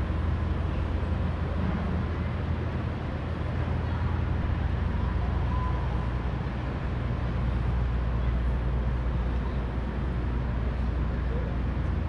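Steady downtown street ambience: a low, even rumble of distant traffic and city hum, with no single event standing out.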